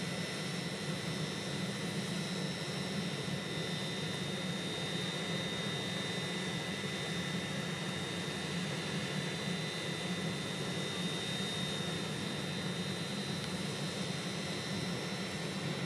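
Hitachi Class 810 Aurora bi-mode train running slowly past: a steady low drone with a thin, high, even whine over it.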